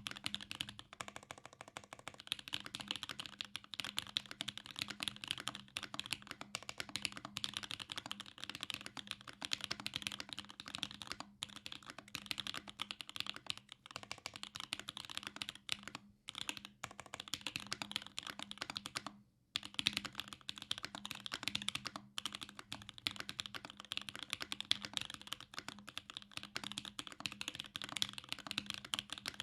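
Fast continuous typing on a custom mechanical keyboard with lubed Gateron Black Ink linear switches, a carbon fiber plate and GMK keycaps: a dense stream of key clacks, with brief pauses about 16 and 19 seconds in.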